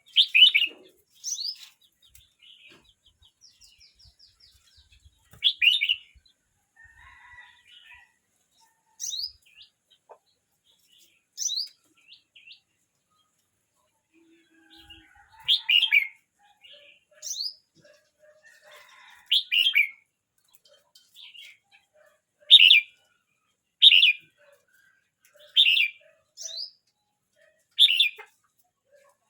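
Red-whiskered bulbul about a year old singing short, bright whistled phrases with gaps of one to three seconds between them. In the last ten seconds the phrases come louder and more regularly.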